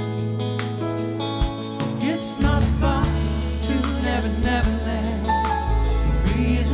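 Live soft-rock band playing a slow ballad on electric guitar, bass and drums, with singing coming in about two seconds in.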